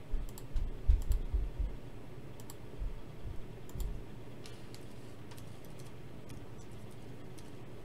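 Computer keyboard typing and mouse clicks: a scatter of keystrokes with a few dull knocks in the first four seconds, thinning to occasional single clicks after that.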